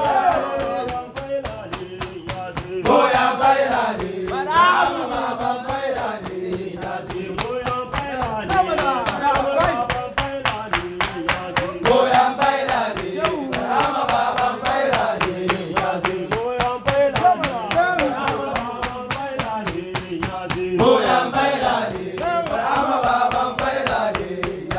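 Male voices chanting a song together over a fast, steady percussive beat.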